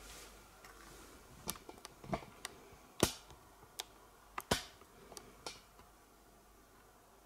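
A scattered series of light, sharp clicks and taps, about a dozen over four seconds. The loudest comes about three seconds in and another about a second and a half later.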